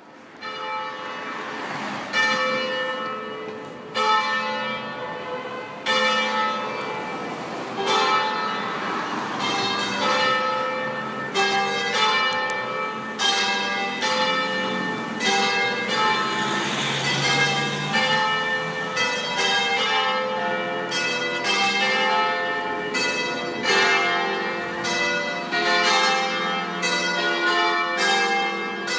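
A peal of seven church bells in a concert tuned in C. The three largest bells are swung and struck together in the Treviso style, while the four smaller ones swing freely, all driven electrically. The strokes start right away, about every two seconds at first, then overlap more and more thickly, each leaving a long ringing tone.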